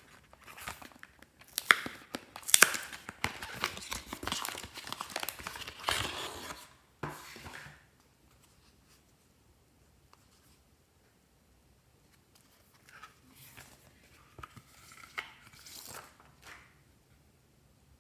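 Glossy slime being worked by hand, with dense sticky crackling and popping for about eight seconds. After a pause, softer crackles and squelches follow near the end.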